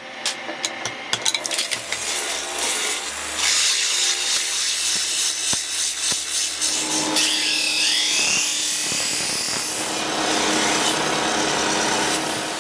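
A few sharp hammer taps near the start, then a motor-driven sanding wheel grinding the wooden knife handle: a loud, continuous rasping that changes pitch as the work shifts, moving on to the steel blade being polished on a buffing wheel near the end.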